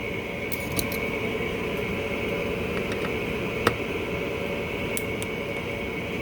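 Light clicks of a slotted screwdriver working a stuck jet in a small-engine carburetor, with one sharper click about three and a half seconds in, over a steady machine hum.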